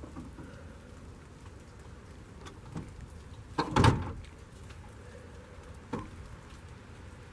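Steady rain pattering on a truck, with one loud thump about halfway through and a lighter knock near the end as a boat battery is handled over the engine bay.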